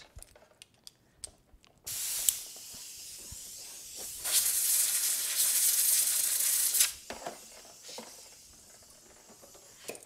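Compressed air from an air compressor hissing out of a blow nozzle as a circuit board is blown clean: a short sharp blast about two seconds in, a softer stream, then a loud blast of about two and a half seconds that drops to a fainter hiss fading toward the end.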